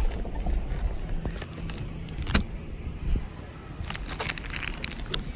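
Fishing tackle and plastic lure packaging being handled: scattered clicks and rustles, with a steady low rumble underneath.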